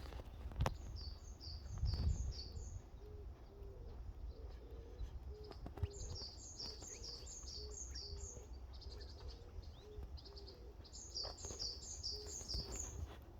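Forest birdsong: one bird sings three runs of quick, high, two-note phrases, about a second in, about six seconds in and about eleven seconds in, while a low cooing call repeats steadily underneath. Hurried footsteps on the forest floor add irregular thumps and rustles throughout.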